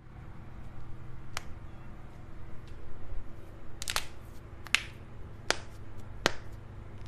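Joints cracking under manual manipulation: sharp, separate pops, one a little over a second in, a quick pair around four seconds and another just before five, then two single cracks near the end.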